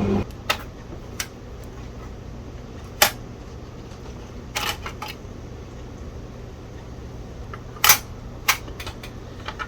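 A handful of sharp clicks and light knocks at irregular intervals, about seven in all, over a low steady hum.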